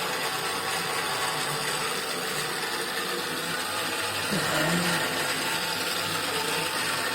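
Electric drill motor running steadily, mounted as the drive of a homemade drill press, with an even whine and whirr.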